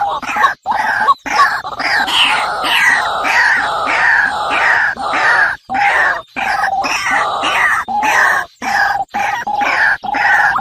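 Many small birds calling loudly and harshly, with rapid repeated chirps that slide downward in pitch, broken off abruptly by several short gaps.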